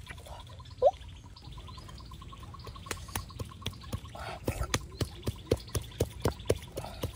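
Heavy cleaver chopping pork on a wooden stump chopping block: quick, even knocks at about four a second, starting about three seconds in. About a second in there is a single short rising chirp.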